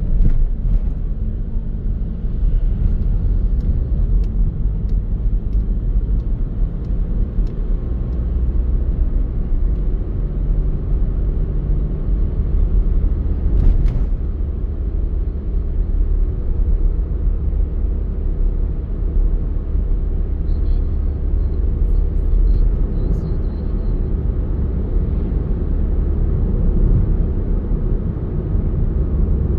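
Car being driven: a steady low rumble of engine and road noise, with one brief click about halfway through.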